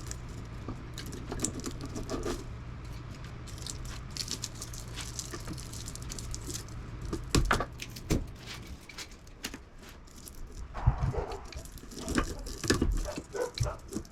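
Metal clinking, scraping and knocking as copper windings are pried and pulled piecemeal out of an air conditioner's electric motor, with a few sharper knocks in the second half. A low steady hum underneath stops about two thirds of the way through.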